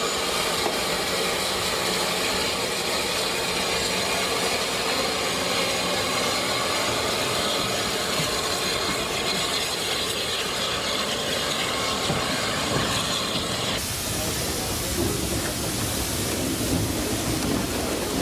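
Steady hiss of steam from the Garratt K1 steam locomotive standing with its train, with a thin high whistle-like tone in the hiss. About fourteen seconds in the sound changes abruptly to a lower, uneven rumble.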